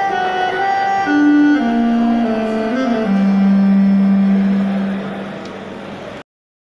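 3D-printed Travelsax, a compact electronic saxophone, playing a short melody that steps down to a long low note held for about three seconds. The note fades and then cuts off abruptly near the end.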